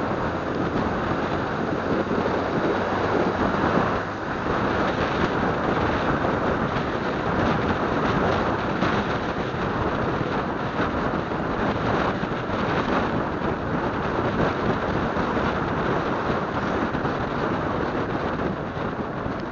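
Wind rushing over the microphone of a moving motorcycle, mixed with engine and road noise: a loud, steady rush with a brief dip about four seconds in.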